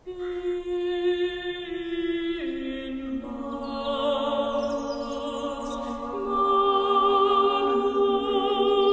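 Slow vocal music: singing voices hold long notes that change in steps, with more voices joining about three seconds in and the music swelling louder about two-thirds of the way through.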